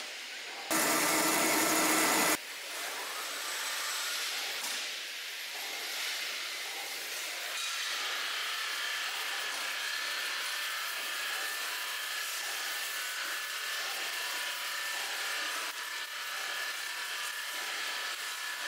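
Steady hissing machine noise of a factory hall, with a much louder burst of harsher noise about a second in that stops sharply under two seconds later. A faint steady whine joins it about eight seconds in.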